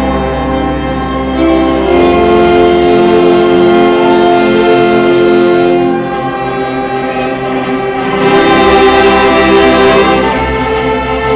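Church orchestra and band playing an instrumental overture: full held chords that change every couple of seconds, growing louder about eight seconds in.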